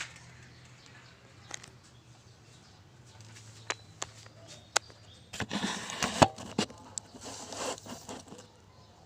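Hand work on car engine wiring: a few separate clicks, then rustling and scraping with a sharp knock partway through, over a faint low hum.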